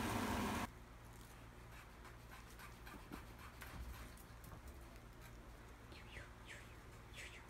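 Steady frying-pan noise that cuts off suddenly under a second in, then faint pattering of a Siamese cat's paws as it scampers across a quilted bed cover, with a few short falling squeaks near the end.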